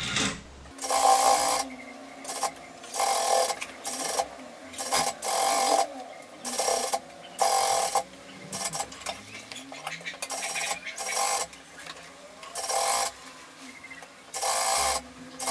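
Sewing machine stitching a seam in about a dozen short stop-start runs, each lasting under a second, with brief pauses between them as the fabric is repositioned.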